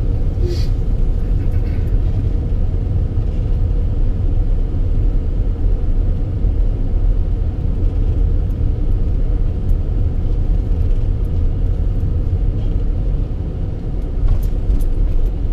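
Car being driven slowly: a steady low rumble of engine and road noise, with a few faint clicks near the start and near the end.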